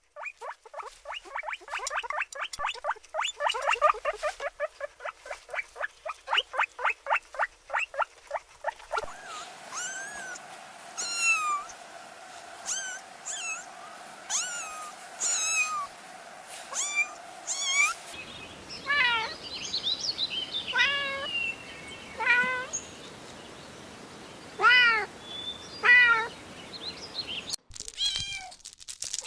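Kittens mewing. A fast run of short calls comes about five a second, then separate high, arching mews. The sound cuts abruptly twice, about 9 and 18 seconds in, and a steady hum sits behind the middle stretch.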